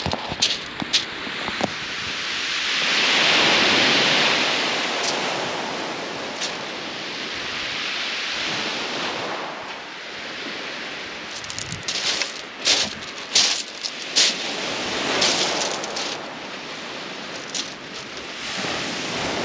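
Waves breaking on a shingle beach, the surf swelling and falling away in surges every few seconds. A cluster of sharp clicks comes about twelve to fourteen seconds in.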